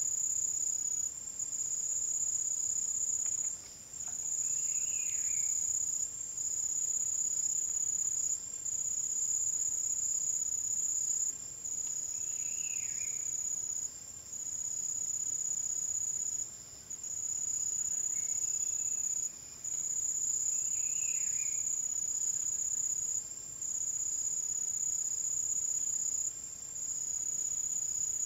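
A chorus of insects trilling in one high, steady tone that drops out briefly every few seconds. Three faint short calls from another animal sound through it.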